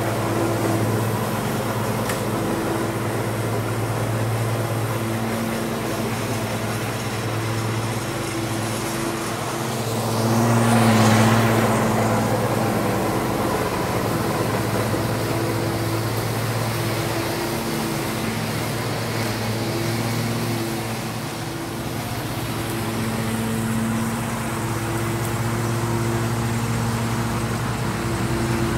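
Lawn mower engine running steadily, with a brief louder swell of noise about ten seconds in.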